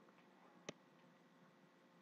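Near silence: room tone, broken by one short sharp click about two-thirds of a second in.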